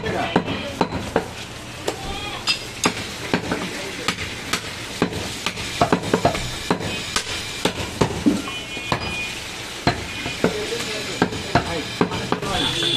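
A large butcher's knife cutting and chopping mutton on a wooden log chopping block: irregular knocks of the blade on the wood, one or two a second, with scraping of meat between them.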